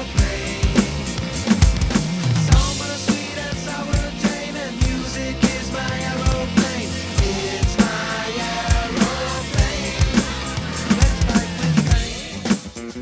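Drum kit played along to a recorded rock song: kick drum, snare and cymbals hit over the track's bass and melody. Near the end the backing music thins out and the drums carry on almost alone.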